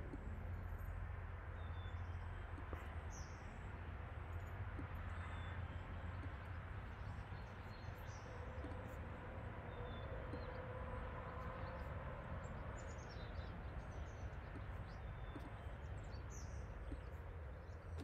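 Birds chirping faintly, short high calls scattered all through, over a steady low outdoor hum.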